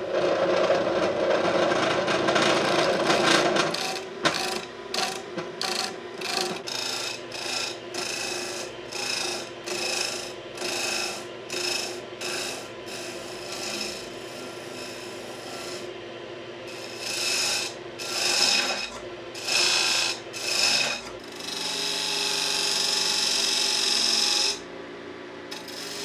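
A wood lathe running while a hand-held turning tool cuts the edge of a spinning plywood disc, shaping it into a belt pulley. The tool's scraping comes in short repeated cuts about once a second, with a longer steady cut near the end.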